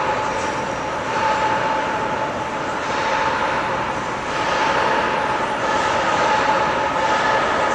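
Steady mechanical drone with a constant whine over city street noise.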